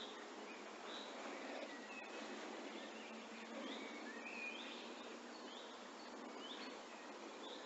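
A bird repeating a short, high chirp about once a second over a faint steady outdoor hiss.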